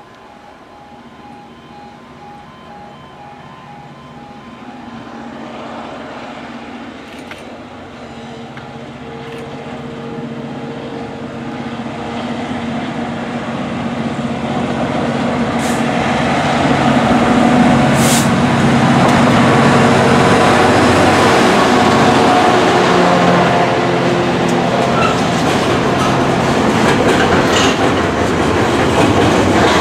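Class 66 diesel locomotive approaching at the head of a container freight train, its engine growing steadily louder over the first half and passing about halfway through, followed by the container wagons running by with wheels clattering over the rail joints. A pulsing warning tone sounds in the first few seconds.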